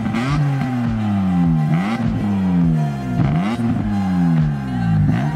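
BMW E46 M3's S54 straight-six, parked, being revved over and over: each throttle blip sends the pitch up quickly, then it falls back slowly, about once every second and a bit. Background music plays along with it.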